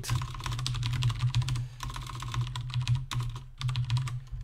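Typing on a computer keyboard: quick, irregular keystrokes that thin out near the end, over a steady low hum.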